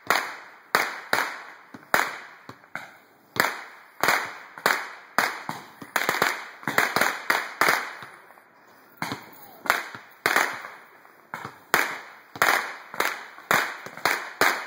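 Fireworks going off overhead: an irregular run of sharp bangs, about two a second, each with a short echo, with a brief lull about halfway through.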